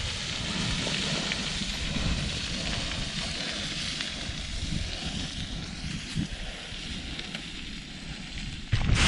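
Loose scree crunching and sliding under boots as someone runs down a scree slope, a steady gritty hiss with wind buffeting the microphone. It gets suddenly louder near the end.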